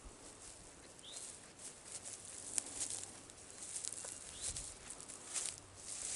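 Footsteps of a hiker walking outdoors, irregular light crunching steps. A bird gives a short chirp twice, about a second in and again about four seconds in.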